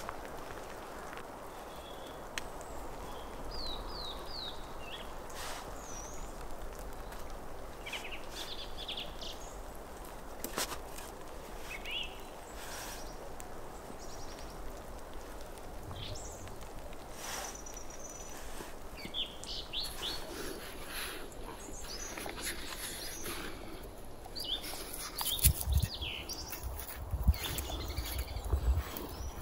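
Small birds chirping now and then in short high calls, over light clicks and rustling of logs being lashed with twine. Near the end, a run of low knocks and thumps from handling the logs, louder than anything else.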